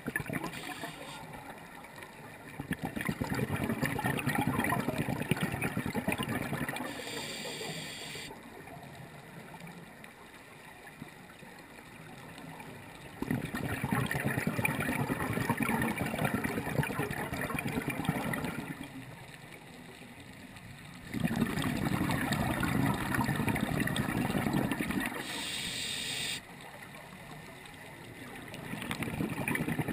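Water bubbling and gurgling in surges a few seconds long, roughly every eight seconds, with quieter gaps between them and a brief higher hiss after some surges.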